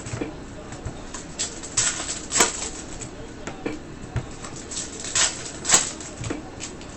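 Trading cards and foil pack wrappers being handled: a run of short swishes and rustles as cards are slid and flipped, with a few louder swipes.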